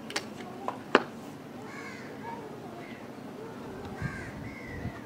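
Crows cawing several times, short arched calls. A few sharp clicks early on, the loudest about a second in.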